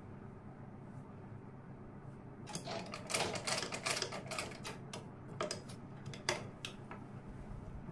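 Usha sewing machine clicking and clattering in a short run of stitches, about two and a half seconds in, followed by a few separate clicks.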